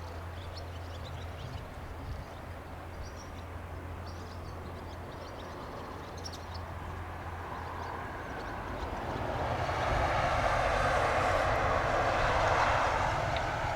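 Series 87 diesel-electric train running past: a steady low engine hum with faint bird chirps, then a rushing noise of the train that swells about two-thirds of the way in and eases off near the end.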